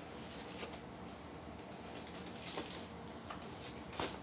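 Hands handling and opening a small cardboard box: faint rustling with a few light clicks and scrapes of the cardboard, the loudest near the end.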